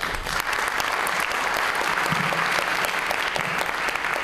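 Audience applauding: dense, even clapping that starts suddenly and keeps up at a steady level.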